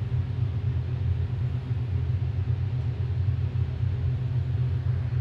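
Ice machine running with a steady low hum while water runs from its fill pipe into the ice trays, with no abnormal noise.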